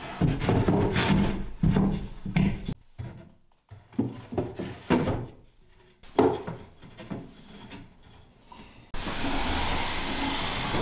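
Plywood shelf panels sliding, scraping and knocking as they are fitted into plywood cabinet boxes, in irregular bursts with a short pause. About nine seconds in, a steady hiss takes over.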